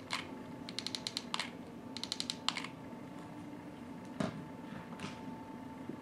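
Hot glue gun trigger clicking as it is squeezed: two short runs of quick clicks about one and two seconds in, with a few single clicks between and after.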